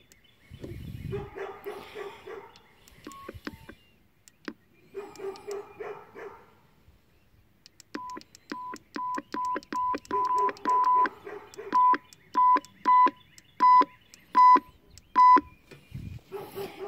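Key beeps from a TW-898UV dual-band mobile radio as its front-panel buttons are pressed: a run of short, single-pitch beeps about two a second, getting louder toward the end as the volume is turned up.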